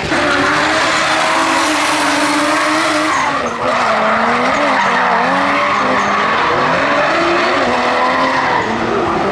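Drift cars' engines revving hard under full throttle, their pitch wavering up and down as the throttle is worked, over a continuous screech of tyres sliding sideways on asphalt.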